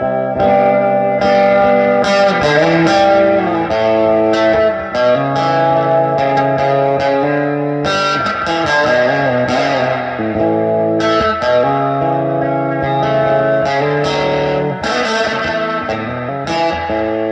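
Fender electric guitar played through a 1965 Fender Deluxe Reverb amp: a run of picked single-note lines with some bent notes, ending on a chord that rings on near the end.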